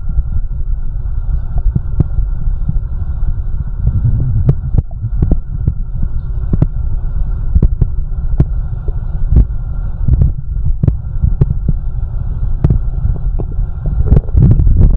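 A person's heartbeat: low, repeated thuds under a steady hum, with sharp clicks scattered through it.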